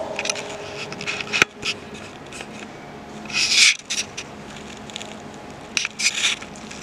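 A steady low hum of a room, with a sharp tap about a second and a half in, a brief rustling hiss near the middle, and a few quick taps near the end.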